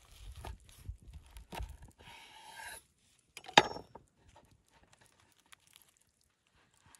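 Large knife sawing through a burger's crusty sesame bun on a wooden board, the crust crackling and crunching in short strokes. About three and a half seconds in the knife knocks sharply on the board, the loudest sound, followed by faint crinkling as the cut burger is pulled apart by hand.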